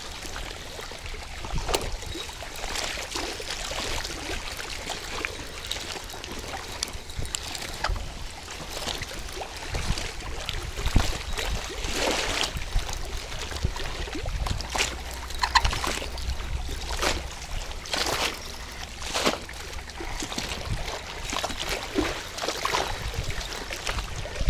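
Shallow water splashing and lapping at the bank in irregular sharp bursts as a hooked silver carp is played on the rod, with wind rumbling on the microphone, strongest around the middle.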